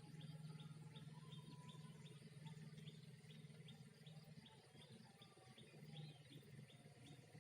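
Faint outdoor ambience: a short high chirp repeating evenly about three times a second, over a low steady hum.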